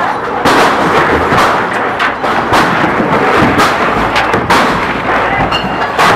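A series of loud, sharp bangs, roughly one a second, over a dense crowd din.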